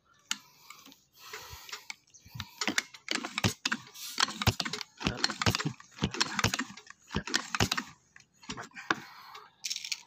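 Canon 747 uklik (pump air rifle) being worked by hand: a run of sharp metallic clicks and clacks with short rushing noises, in repeated strokes roughly once a second.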